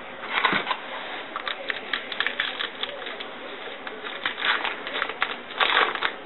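Hockey trading cards being flipped through and handled: a quick run of light card clicks and rustles, with louder rustling about half a second in and again near the end.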